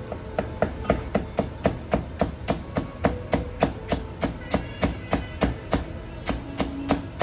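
Kitchen knife julienning green peppers on a cutting board, the blade striking the board in an even rhythm of about four strokes a second.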